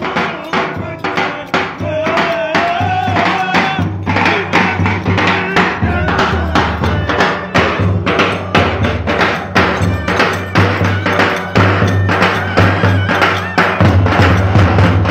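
Lively Turkish dance music: a davul bass drum beating a fast, driving rhythm with sharp clacking percussion, under a wavering melody line that stands out in the first few seconds.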